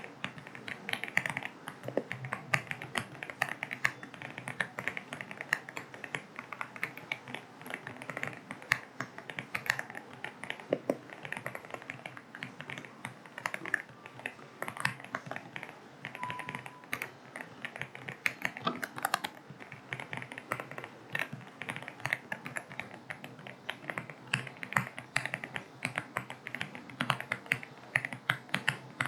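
AULA F75 mechanical keyboard with linear switches being typed on steadily, a quick, uneven run of key clicks, over a steady rain ambience.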